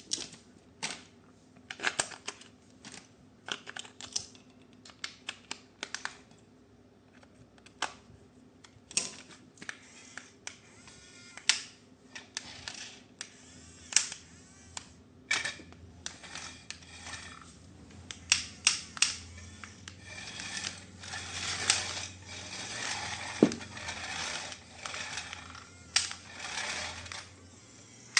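Hard plastic toy parts and packaging being handled: irregular clicks and clacks, becoming denser scraping and rustling about two-thirds of the way through.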